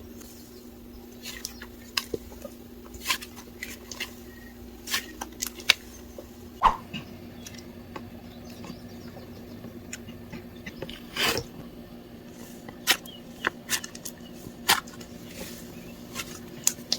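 Slime being pressed, squished and stretched by hand: irregular sticky pops and clicks, a few of them louder, over a faint steady hum.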